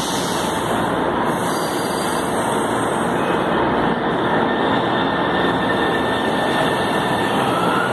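São Paulo Metro train at the platform making a steady, even running noise, with a faint rising whine near the end.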